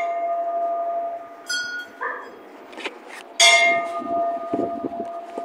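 Hindu temple bells struck by hand: one bell rings clearly and fades, a smaller, higher-pitched bell is struck lightly about a second and a half in, and the first bell is struck hard again about three and a half seconds in, ringing on steadily.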